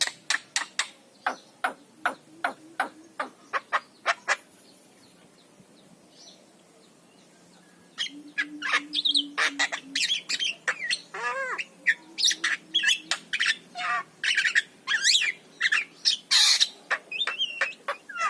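Javan myna (jalak kebo) singing: a quick run of clicking chatter, a pause of a few seconds, then about eight seconds after the start a busy, varied stream of harsh squawks, whistles and notes that glide up and down.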